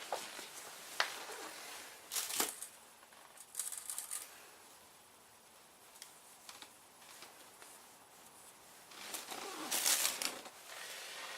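Hands at work on a motorcycle with tools and parts: scattered sharp clicks and short bursts of rustling and scraping, the longest about nine seconds in.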